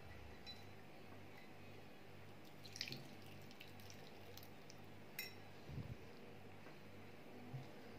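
Lemon juice poured from a hand citrus juicer into a glass bowl, faint dripping with a few light taps, over a low background hum.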